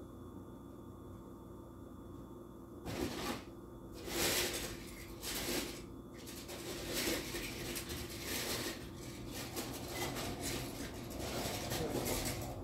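Someone rummaging through a closet: irregular rustling and clattering of things being moved about, starting about three seconds in, over a steady faint hum.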